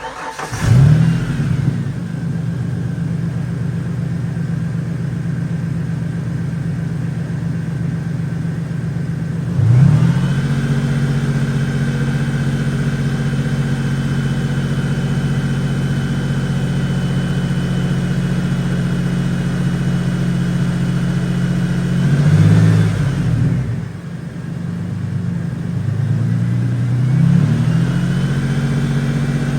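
Truck engine firing up and catching at once, then running at a steady idle. It is revved up about ten seconds in and settles at a faster idle, then is blipped briefly twice more near the end.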